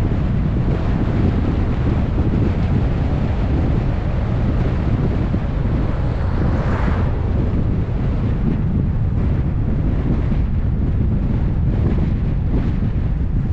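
Wind rushing over the microphone of a GoPro on a moving car, a steady low rush, with a brief louder whoosh about seven seconds in.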